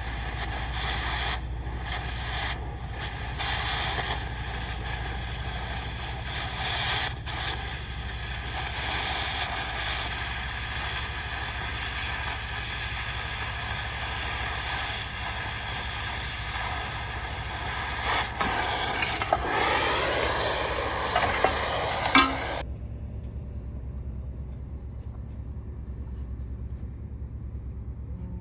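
An electric arc hisses and crackles harshly on steel, cutting off abruptly about 22 seconds in. An engine-driven Miller Big Blue 500 welder's motor runs steadily underneath throughout.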